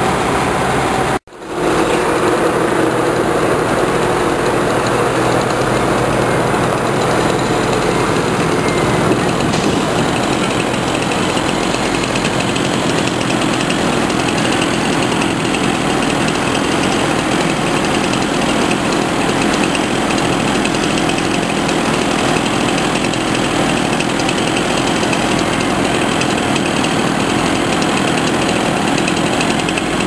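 Engine of a truck-mounted knuckle-boom log loader running steadily, driving the hydraulic boom as it grabs and lifts heavy log sections onto the truck. The sound cuts out briefly about a second in.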